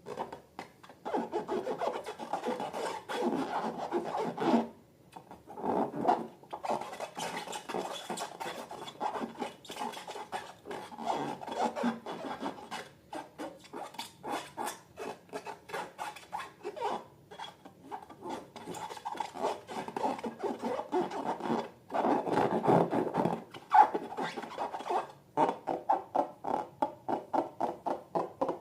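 Slime being worked and mixed: runs of rapid rubbing, scraping strokes with short pauses between them.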